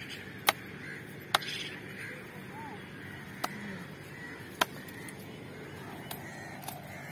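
About six sharp, short clicks or snaps at irregular intervals, over faint bird calls.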